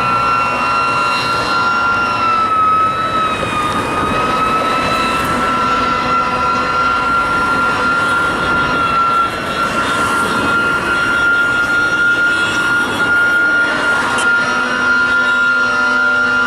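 Fire truck siren held at a steady high whine that wavers slightly in pitch, over heavy engine and street noise.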